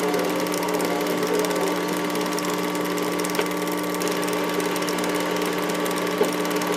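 Steady mechanical whirring with a constant hum from an old home-movie film mechanism running, with a couple of faint clicks.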